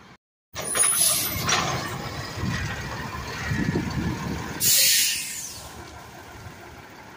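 Refuse truck running close by, its diesel engine rumbling, with a loud short burst of air-brake hiss a little under five seconds in. The sound cuts in suddenly after a brief silence at the start.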